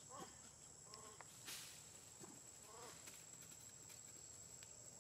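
A few short, faint calls from macaques over a steady high insect buzz, with a brief rustle about a second and a half in.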